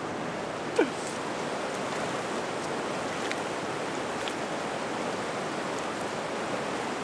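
Fast river water rushing over rocks through rapids: a steady, even rush of whitewater.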